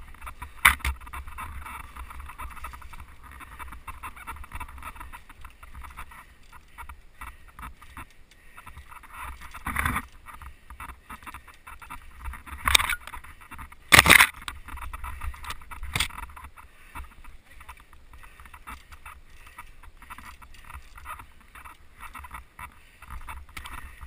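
Mountain bike riding over a dirt trail, heard from a handlebar-mounted camera: steady tyre and rattle noise over a low rumble, broken by several sharp knocks as the bike hits bumps. The loudest knocks come about a second in and about fourteen seconds in.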